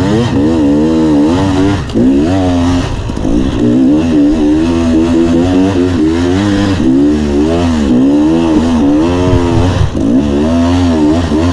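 KTM EXC 300 two-stroke enduro bike's single-cylinder engine revving up and down repeatedly under load while climbing a steep dirt trail, heard from on board.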